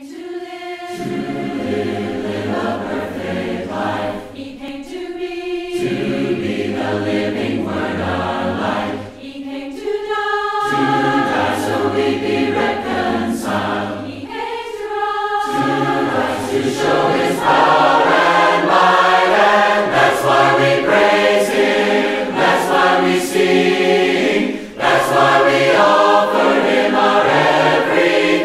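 An a cappella vocal ensemble singing a worship song in harmony, in phrases with brief breaks between them, fuller and louder from about halfway on.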